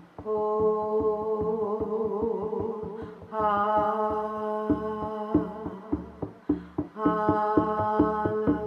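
Steady beat on a shamanic hand drum, about three to four strokes a second, with a voice holding long toned notes over it: three sustained notes of about three seconds each.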